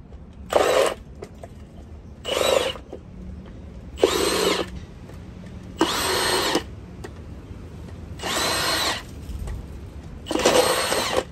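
Milwaukee cordless impact wrench run in six short bursts, each about half a second to a second long, on the front wheel's lug nuts.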